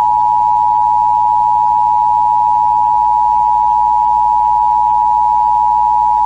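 Emergency Alert System attention signal: a loud, steady two-note tone held without a break and cutting off sharply at the end. It is the signal that an emergency message is about to follow.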